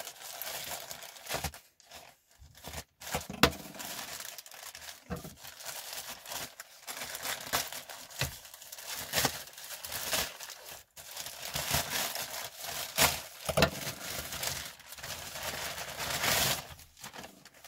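White plastic mailer bag being slit with a folding knife and pulled open: the film crinkles, rustles and tears irregularly, with sharp clicks and rips.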